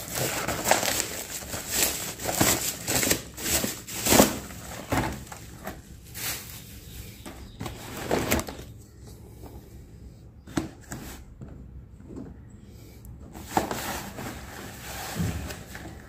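Bubble wrap being pulled and peeled off a cardboard box, crinkling and rustling with many sharp crackles through the first half. After that comes quieter handling of the box, with a few soft knocks.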